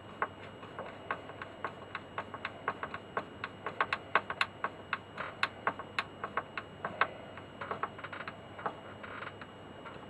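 A screwdriver driving screws back into a record player's front panel: a string of light, irregular clicks, about three or four a second, thickest in the middle.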